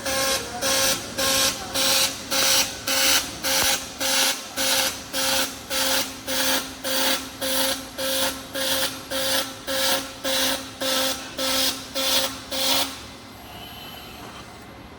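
Robotic arc welding: the welding arc crackles in a steady pulsing rhythm, about two pulses a second, then stops about thirteen seconds in, leaving a low steady hum.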